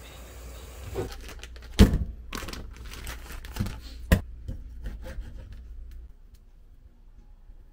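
A plastic sausage packet crinkling and rustling as it is handled and opened, with a few sharp knocks, the loudest about four seconds in. It goes much quieter after about six seconds.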